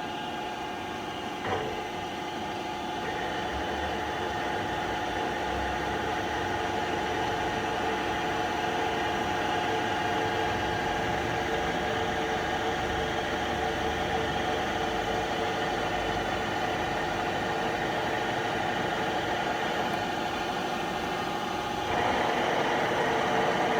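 Trak DPM5 CNC bed mill running a short program: the spindle turning at 1200 RPM in high gear while the X, Y and Z axis drives move together. A steady machine whine with several held tones, shifting a few seconds in and growing louder near the end.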